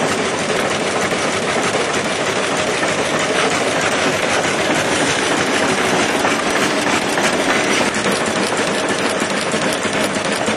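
Antique Townsend 12-25 tractor running as it drives, a steady, dense mechanical clatter of engine and running gear.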